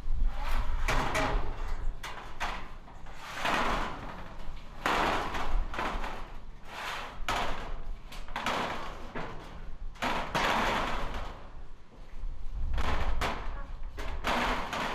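A corrugated roofing sheet scraping and knocking as it is pushed and slid across a metal roof frame, in repeated scrapes about a second long with thumps between.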